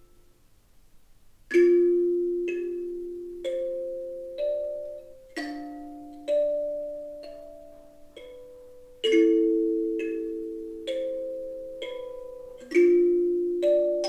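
Otozure Sabmarine kalimba played slowly: after a short pause, a low plucked chord about a second and a half in, then single higher notes between further chords roughly every three and a half seconds, each note left to ring and fade.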